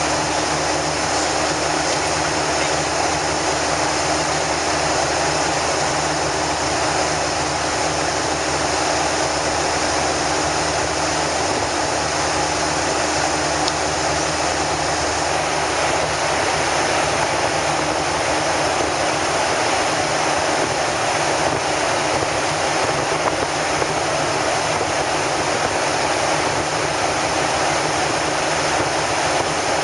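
Steady cabin noise of a Boeing 737-800 at cruise altitude: the even rush of air along the fuselage and the drone of its jet engines, with a few faint steady hums under it.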